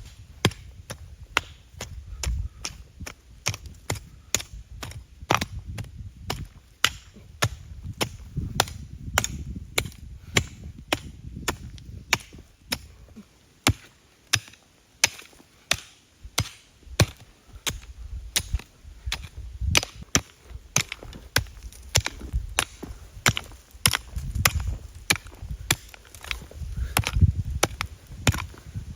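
Wood being chopped with a hand blade: a long, steady run of sharp strikes, about two or three a second.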